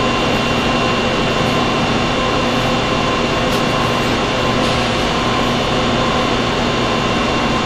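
Steady background hum and hiss with a few faint steady tones, unchanging throughout and with no distinct event.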